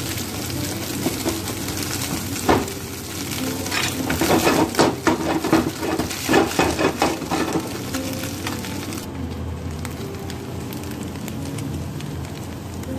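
Scrambled egg sizzling in a nonstick frying pan while a spatula stirs and scrapes it, with one knock early on and a quick run of loud scraping strokes in the middle. The high sizzle drops away about nine seconds in.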